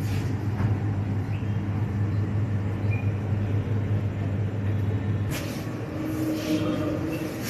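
Steady low machine hum that stops abruptly about five seconds in, over faint background noise.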